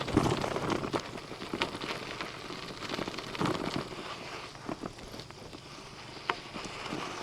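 Bicycle tyres rolling over a loose gravel and dirt track: a continuous crackling crunch with scattered sharper clicks and knocks from the bike.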